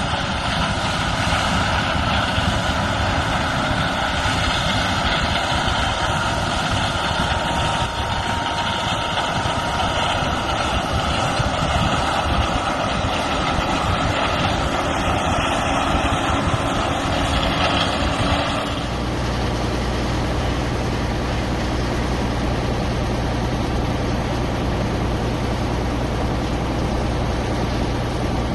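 Heavy farm machinery engine running with loud, steady mechanical noise. About two-thirds of the way through, the sound changes abruptly to a steadier, lower engine hum.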